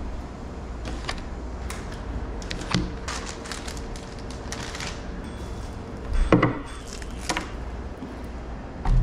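Items being set down on a wooden table: a few sharp knocks of plastic food containers and a bottle put down, with paper crackling between them, the loudest knock about six seconds in. A low steady hum lies under it all.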